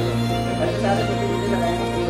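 Background music: a slow, tender tune of sustained notes over a held bass note.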